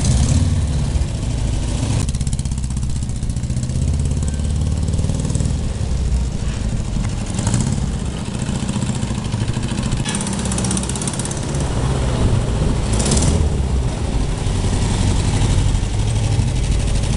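Amazonas 1600 motorcycle's air-cooled Volkswagen 1600 boxer four-cylinder engine running, at idle and with the bike under way, with a deep, steady note.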